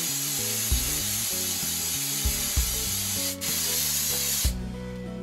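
Aerosol hairspray can spraying in a steady hiss, with a brief break about three seconds in, then stopping about four and a half seconds in.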